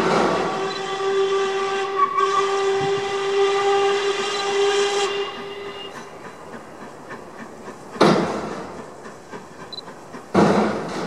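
Steam locomotive 46233 'Duchess of Sutherland' sounding its whistle in one long, steady blast of about six seconds. Loud metallic bangs from a scrap metal plant cut across it: one as the whistle begins, another about eight seconds in, and a third near the end.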